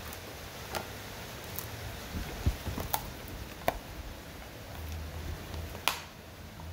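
Dog chewing a dried pig ear, with a handful of separate sharp crunches and clicks spread a second or more apart and a few soft low thumps near the middle.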